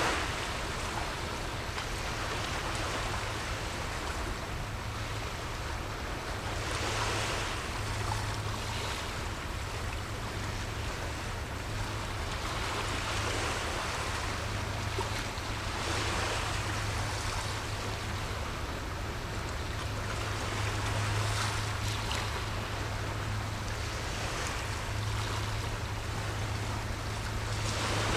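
Small sea waves washing against the shore, swelling every few seconds, over a steady low hum.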